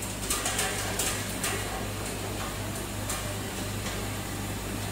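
Tube ice machine running between harvests: its refrigeration compressor gives a steady low hum, with a few light ticks over it.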